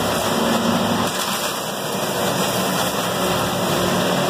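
Wet concrete churning and tumbling inside a concrete mixer truck's rotating drum, a steady rushing noise, with a low engine hum from the truck underneath.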